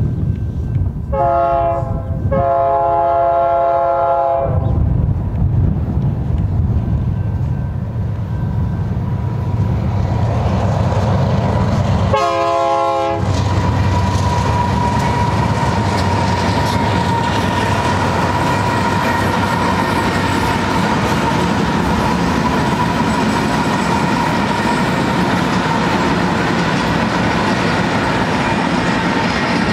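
BNSF diesel locomotive air horn sounding a short blast and then a long one, starting about a second in, and one more short blast around twelve seconds in. Between and after the blasts, a long multi-locomotive train rumbles and clatters past, with a steady high tone riding over the rolling cars in the second half.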